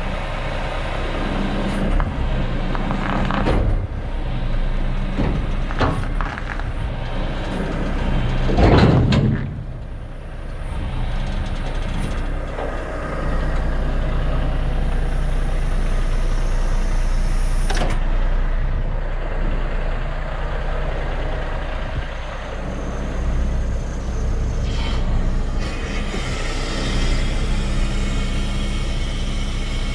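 Heavy diesel truck engine running steadily, with scattered clanks and knocks and one loud burst about a third of the way through.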